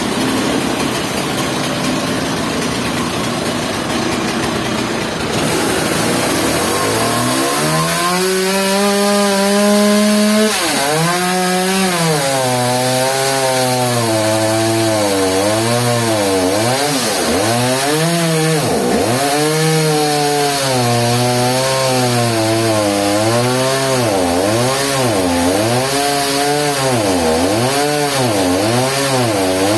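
Chainsaw cutting wood, its engine pitch climbing about six seconds in. The pitch then keeps dipping and recovering as the chain bites and frees, the dips coming faster near the end.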